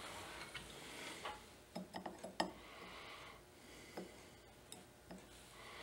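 Faint clicks and taps of small jeweller's tools and parts being picked up and set down on the bench: a quick cluster of four about two seconds in, then single clicks near four and five seconds, over soft rustling.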